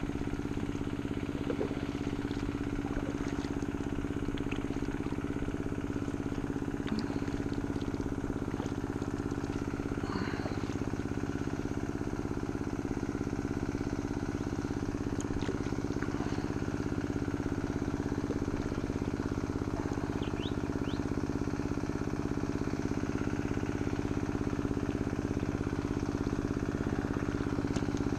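An old water pump's engine rattling away steadily as it pumps water, an even unchanging hum that grows a little louder near the end.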